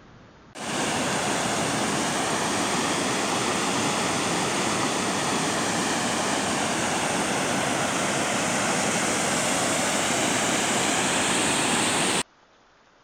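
Mountain creek cascading over boulders in whitewater: a loud, steady rush of water that starts suddenly about half a second in and cuts off suddenly near the end.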